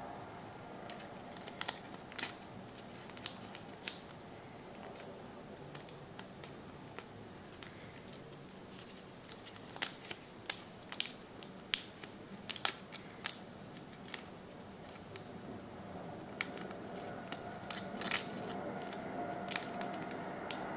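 Folded origami paper crinkling and crackling as fingers pinch and press it into shape, in short sharp snaps. They come in scattered clusters, thickest about halfway through and again near the end.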